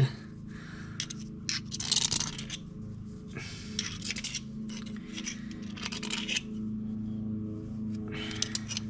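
A lathe motor hums steadily under irregular scraping, rasping strokes of brass being cut and worked.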